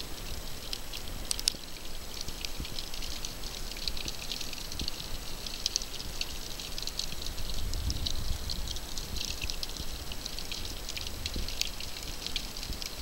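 Underwater ambience over a rocky reef: a dense, irregular crackle of tiny clicks, with a low rumble of water movement that swells about eight seconds in.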